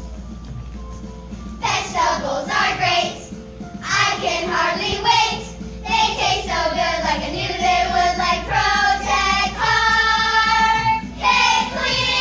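Group of children singing a song together, starting about a second and a half in, with a long held note near the end.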